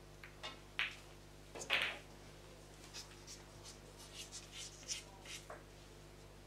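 Pool balls knocking together on the table, the loudest knock near two seconds in, followed by a run of lighter clicks and taps.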